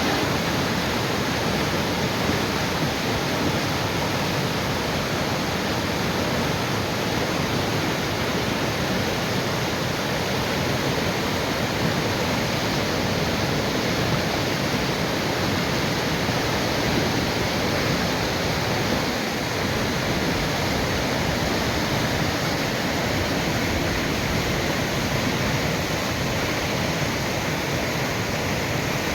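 Rushing water of a river or mountain stream swollen by days of heavy rain, a steady loud roar with no let-up.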